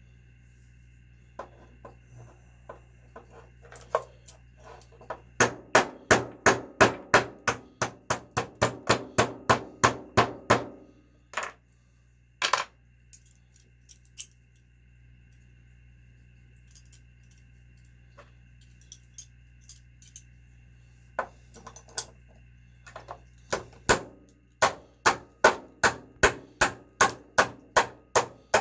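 Metal hammer taps in quick runs of about four strikes a second, with a few single knocks between, knocking a seized part and its rear bearing out of a small nitro RC engine.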